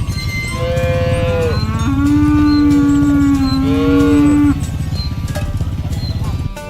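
Cattle mooing, several calls overlapping: a higher moo about half a second in, then a long, low moo from about two seconds to four and a half seconds with another higher moo over it.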